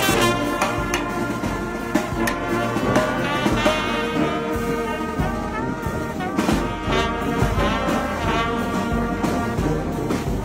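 Brass band playing a slow piece, trumpets holding sustained notes over bass drum beats.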